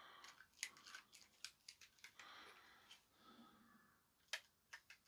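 Faint, irregular plastic clicks and taps as the buttons of a partly reassembled LG TV remote are pressed one after another, with one sharper click about four seconds in.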